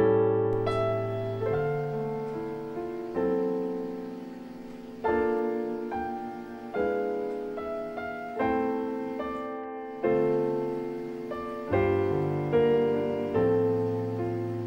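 Slow, gentle solo piano background music: chords struck about once every one to two seconds, each one ringing and fading before the next.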